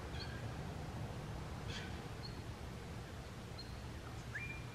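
Quiet outdoor ambience with a steady low background rumble and a few distant birds: several short high chirps and one whistled note that rises and then holds, near the end.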